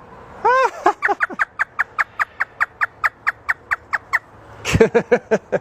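African grey parrot imitating a hysterical human laugh. It opens with a few rising-and-falling notes, then runs into a fast, even string of short "ha" notes, about six a second, for some three seconds. A few more calls come near the end.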